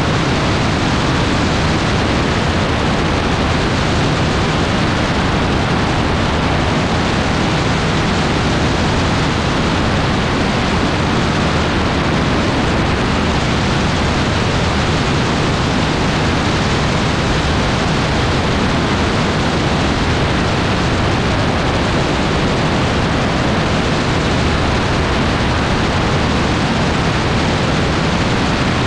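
Loud, steady rush of wind over the microphone of an open-cockpit AutoGyro MTOfree gyroplane in flight, with the drone of its engine faintly underneath.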